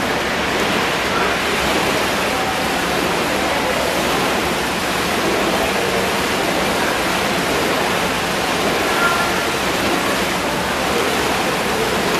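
Steady rushing, splashing water as dragon boat paddles churn the pool water during a hard paddling interval, with no single stroke standing out.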